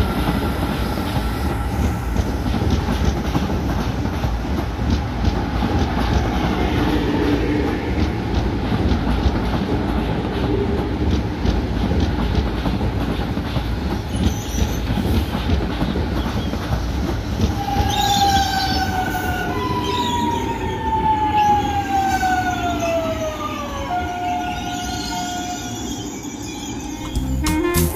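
Electric commuter trains on the rails: a steady rumble of wheels on track as a train runs off. From about two-thirds of the way in, an arriving ViaMobilidade Series 8900 train's traction motors whine at several pitches that glide downward as it slows into the platform, ending on a steady whine.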